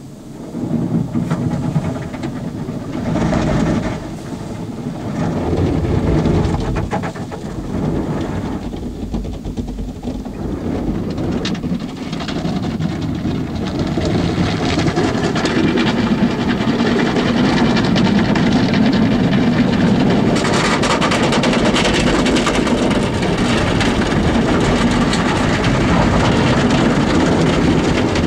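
Automatic car wash heard from inside the car: rotating brushes, water jets and cloth strips beating and sluicing over the windshield and body in a loud, rumbling wash. It swells and dips at first, then grows steadier and louder after about a dozen seconds, with more hiss in the last third.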